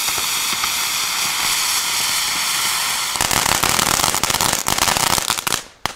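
A Crackling Bird firework caught in foliage and burning in place instead of flying. Its charge hisses steadily for about three seconds, then breaks into a dense spell of crackling that cuts off abruptly just before the end.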